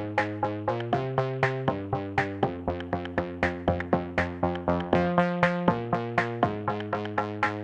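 Electronic dance music: synthesizer chords over a fast, steady drum-machine beat.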